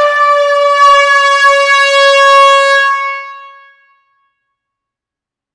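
One long, loud air horn blast in an enclosed hall: a single steady tone with many overtones that holds for about three seconds, then dies away over about a second.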